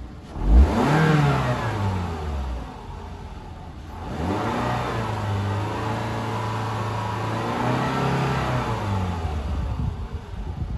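2010 Toyota Camry SE's 2.5-litre four-cylinder engine being revved twice. A quick blip about half a second in falls back within two seconds, then a longer rev from about four seconds is held until about nine before dropping back to idle. It sounds really good and revs out cleanly, a healthy engine.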